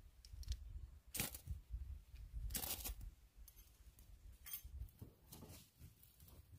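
A few short scrapes, the longest and loudest about two and a half seconds in, over a low rumble.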